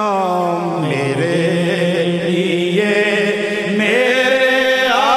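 Male voice reciting a Punjabi naat in long, drawn-out notes that slide slowly up and down in pitch, without any beat.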